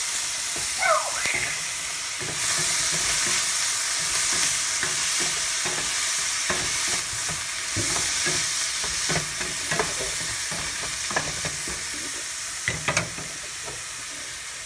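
Chopped red onions sizzling as they fry in a stainless steel pan: a steady hiss, with a wooden spatula stirring and scraping against the pan in scattered short knocks.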